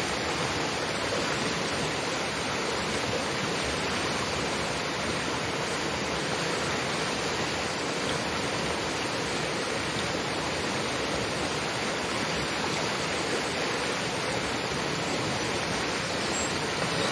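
Mountain river with a strong current, rushing with a steady, even noise.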